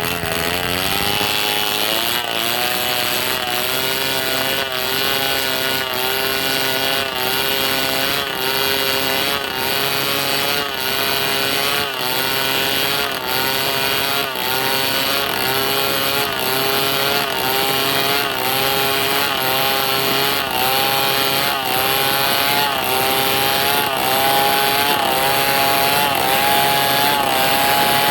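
Chainsaw running at high speed as it cuts, its engine pitch dipping briefly about every two-thirds of a second.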